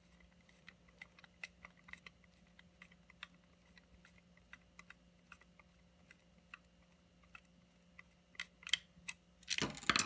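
Small screwdriver backing a screw out of a Roomba 650 wheel module's plastic shell: faint, irregular little clicks, a few a second, as the driver is turned and regripped. Louder handling noise near the end as the screw comes free.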